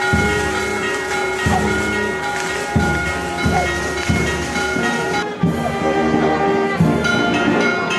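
Music: held chords over a steady low beat that falls about every 1.3 seconds.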